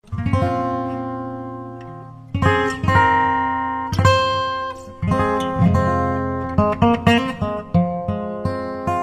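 Acoustic guitar music that starts suddenly out of silence: a few strummed chords left to ring and fade, then quicker plucked notes in the second half.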